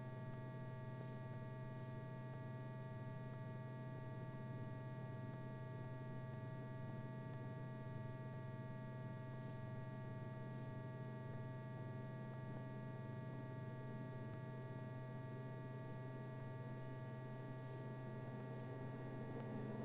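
Steady low electrical hum with a few faint, steady higher-pitched tones over it, unchanging throughout.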